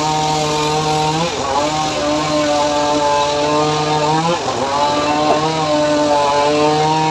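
Homemade engine-driven circular saw bench (srekel) running while it rips a teak log. Its steady machine note sags in pitch and recovers twice.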